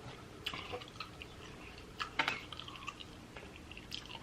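Close-miked wet chewing with small lip smacks and moist mouth clicks, scattered through, with a louder cluster about two seconds in.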